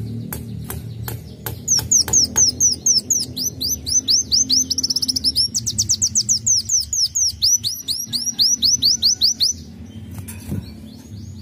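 Kolibri wulung (sunbird) singing a long, fast run of sharp, high, downward-slurred whistles, which quicken into a rapid trill partway through and stop shortly before the end. A few sharp ticks come before the song.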